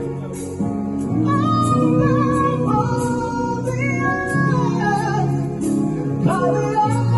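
Live gospel music during a sound check: a singer's voice over sustained keyboard or organ chords with a bass line.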